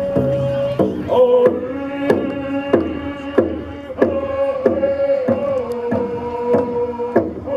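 A group of voices chanting a traditional Native canoe song in unison, holding long sung notes over a steady struck beat of about three beats every two seconds.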